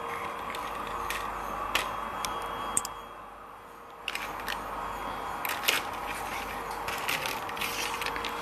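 Handling noise from a plastic gel-polish swatch palette being moved close to the microphone: scattered light clicks and rustles, denser near the end, over a faint steady tone.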